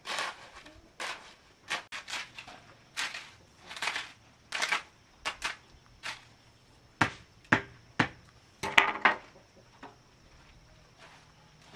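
A steel hoe dragged and pushed through wet concrete, spreading it over a slab: short gritty scrapes about once a second, then several sharp knocks of the tool against hard material near the middle.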